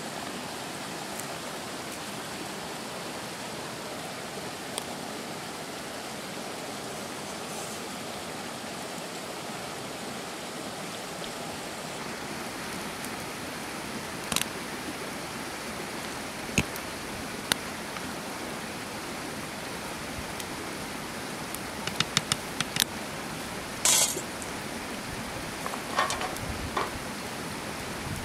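Rice boiling hard in a blackened pot over a wood fire: a steady rushing, bubbling hiss. From about halfway there are a few sharp knocks and clicks of the wooden spoon and the pot being handled, bunched together near the end.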